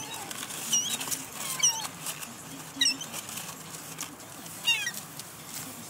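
Seagulls giving short, high mewing calls, four or five spread across a few seconds.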